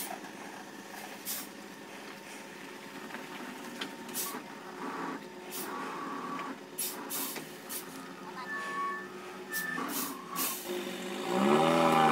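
Heavy log truck manoeuvring: a string of short air hisses typical of truck air brakes, and a few brief beeping tones. Near the end its diesel engine revs up loudly, its pitch dipping and then rising.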